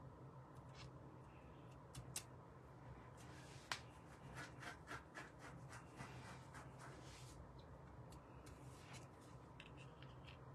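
Faint clicks and rustles of paper and card being handled by hand. There is one sharp click about four seconds in, and a quick run of small clicks and rustles lasting a few seconds just after it.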